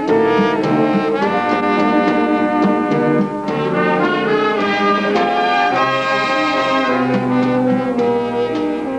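Concert band playing, brass to the fore, in held chords that change every second or so.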